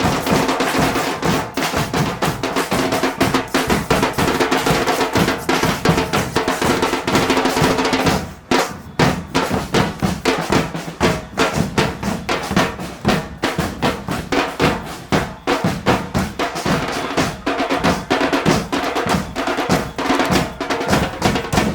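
Murga percussion (bass drum, snare drum and cymbals) playing a fast, driving rhythm. For the first eight seconds or so it plays under a held chord, which breaks off suddenly; after that the drums carry on alone.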